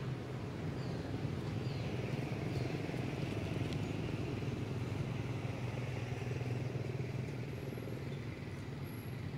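Steady low rumble of a motor vehicle engine running in the background, with a few faint short high chirps.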